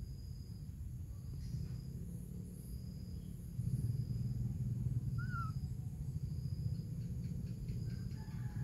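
Outdoor ambience among trees: a steady low rumble on the microphone, louder from about halfway through, with a thin high call repeating roughly once a second and a single short chirp near the middle.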